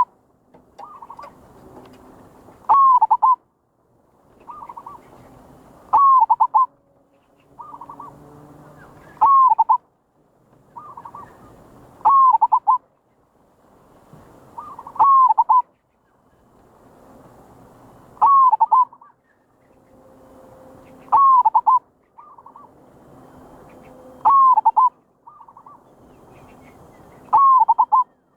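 Zebra dove (merbok) cooing lure call: a loud phrase of curved coos repeats about every three seconds, with softer short coos between.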